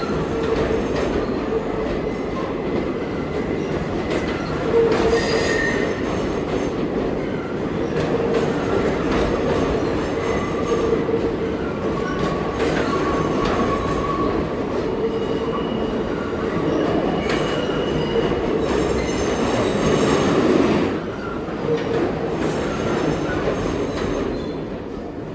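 New York City subway train running through the station, a steady rail rumble with the wheels squealing on and off at several pitches; the sound eases off about 21 seconds in and again near the end.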